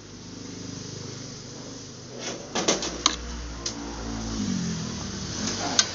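Several sharp clicks and knocks, a cluster about two to three seconds in and one near the end, from the metal and plastic parts of a disassembled air fryer being handled, over a steady low hum.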